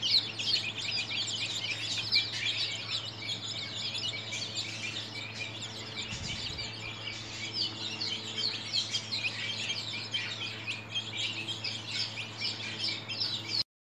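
A flock of 13-day-old chicks peeping continuously, many short falling peeps overlapping. The sound cuts off suddenly near the end.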